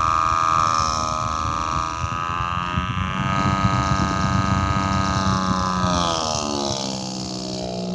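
Desk fan running on high with a finger pressed against it to load it, making a buzzing, engine-like drone that imitates a two-stroke Detroit Diesel. The pitch wavers, then falls about six seconds in, like an automatic transmission shifting.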